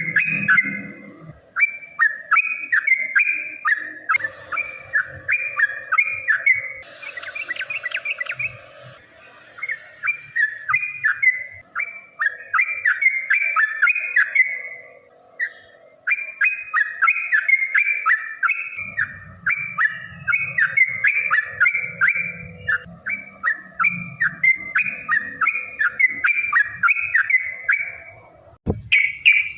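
Yellow-vented bulbul (trucukan) singing a long, rapid run of bubbly chirping notes, several a second, with short breaks near the start and around the middle.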